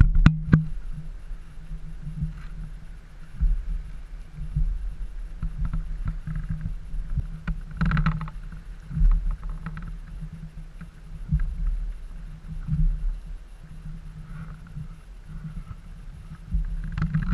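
Outboard engine of a rigid inflatable boat running at low speed: a steady low drone over an uneven low rumble. Two sharp knocks right at the start.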